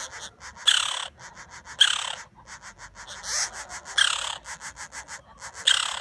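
Green-barred woodpecker nestling begging from its tree-hole nest: a fast chatter of short high notes, broken five times by louder harsh raspy calls that slide down in pitch.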